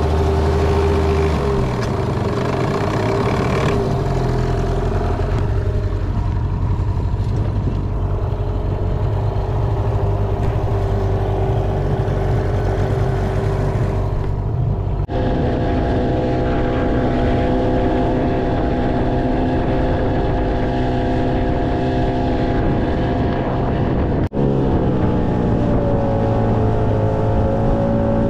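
Hangkai 15 hp outboard motor running under way, driving an inflatable boat across open water. The engine note jumps abruptly twice, and near the end its pitch dips and rises again.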